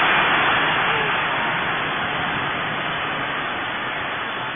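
Football stadium crowd noise, a dense even roar that is loudest at the start and slowly dies down.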